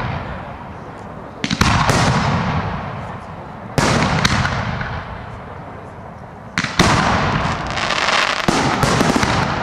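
Aerial fireworks shells bursting: sharp bangs about a second and a half in, near four seconds and near seven seconds. Each is followed by a long crackling fizz that slowly fades.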